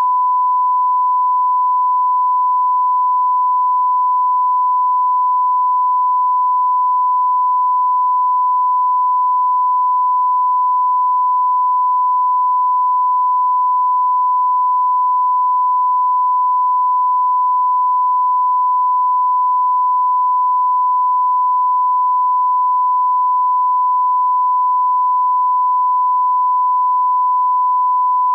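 Broadcast line-up test tone played with colour bars at the head of a tape: a single steady pure tone, loud and unbroken.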